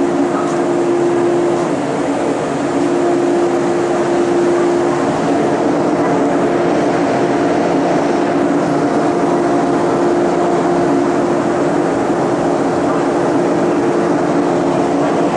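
A stopped JR 583 series electric sleeper train's onboard equipment running: a loud, steady hum with a couple of held tones over an even rushing noise.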